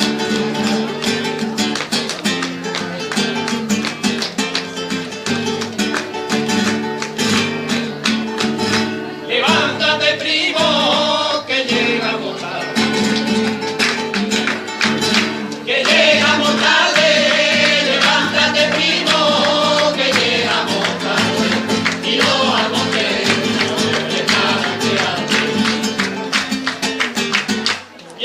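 Music: fast flamenco-style guitar strumming, with a singing voice coming in about nine seconds in.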